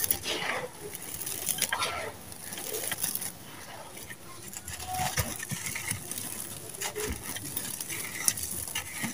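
Dry sand-cement lumps crumbling and crunching in bare hands, with loose grit and dust pattering down in irregular bursts.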